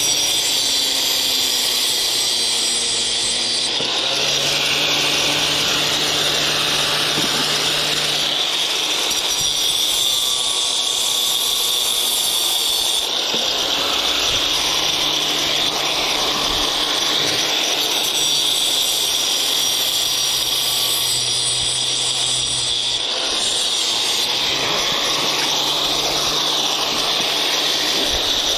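A power tool running continuously, its sound shifting every few seconds as it works.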